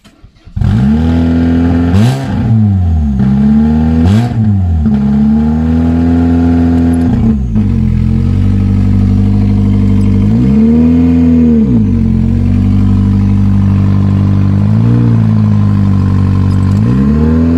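An Opel Astra's four-cylinder 16-valve 100 PS petrol engine starts about half a second in after standing for a few months, then idles with five brief blips of the throttle, the longest about two-thirds of the way through.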